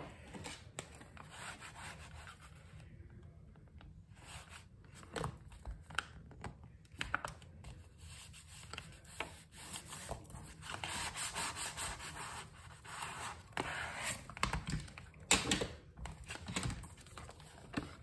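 A plastic scraper rubbed back and forth over freshly glued paper to smooth it down: a dry, soft scraping hiss, longest in the middle, with small paper rustles and taps as the paper is handled.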